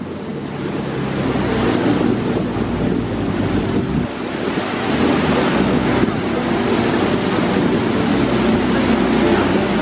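McLaren 12C's twin-turbocharged V8 running at low speed as the car creeps past, growing louder over the first two seconds, with wind buffeting the microphone.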